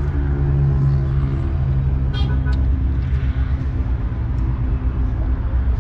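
A vehicle engine idling with a steady low hum, heard from inside the cabin, with a short horn toot, two quick blasts, about two seconds in.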